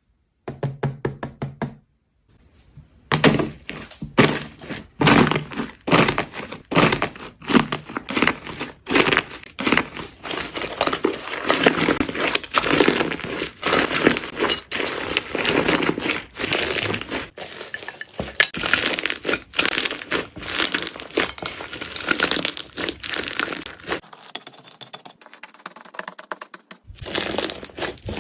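Jelly slime being pressed and squeezed by hand close to the microphone, giving dense crackling and clicking that starts up about three seconds in after a short silence.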